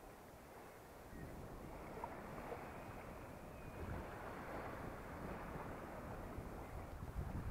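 Small waves washing in over wet sand and around rocks at the water's edge, swelling about a second in and again near the end, with some low wind rumble on the microphone.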